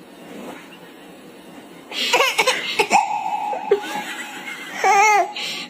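A baby laughing and squealing. After a quiet start, a string of high laughs begins about two seconds in, with a drawn-out squeal and a wavering giggle near the end.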